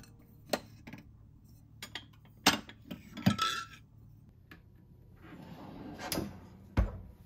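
Ceramic plates clinking and knocking against each other as they are tipped in a wooden-pegged dish stand inside a kitchen drawer: several separate knocks, one with a short ringing clink. Near the end the drawer slides shut and closes with a low thud.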